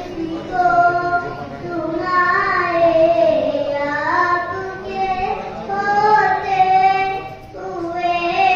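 A young boy singing a naat, an Islamic devotional song in praise of the Prophet, into a microphone, with long wavering held notes and a short pause for breath near the end.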